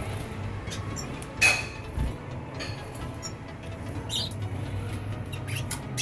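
Caged red siskins giving scattered short, high chirps and squeaks, with one louder sharp click about a second and a half in, over a steady low hum.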